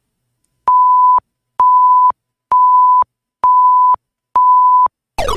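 Five identical electronic beeps at one steady pitch, about one a second, each lasting about half a second, counting down the time to answer. Near the end a sound effect with several tones sliding down in pitch comes in.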